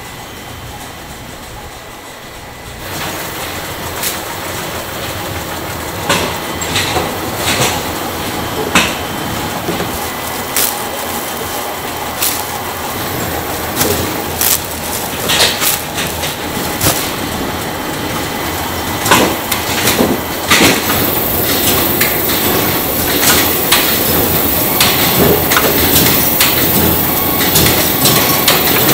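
Bakery production-line machinery running, with many irregular clanks and clicks. It is quieter for the first few seconds, then louder, with a hiss rising in the last third.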